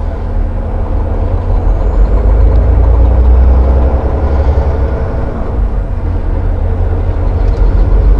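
Semi truck's diesel engine heard from inside the cab: a deep, steady rumble that grows louder over the first few seconds as the truck pulls through a left turn and picks up speed, easing off for a moment, then building again near the end.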